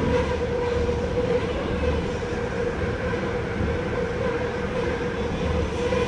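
Running noise inside a Busan Metro 1000-series car with Toshiba PMSM traction, travelling at a steady speed in a tunnel: wheel-and-rail rumble under a steady hum.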